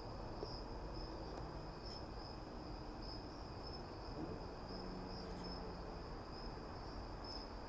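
Crickets chirping: a steady, high, pulsing trill.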